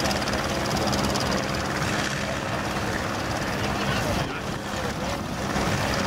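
Vintage combine harvester's engine and machinery running steadily, a continuous mechanical drone.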